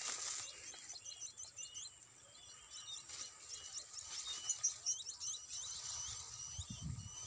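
Wild birds chirping and twittering in many short, quick calls, with a steady high hiss behind them.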